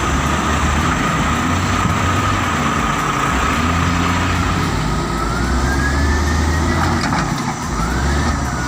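Heavy machine engine running steadily with a pulsing low rumble and a high whine. The whine rises in pitch about two-thirds of the way in and again near the end.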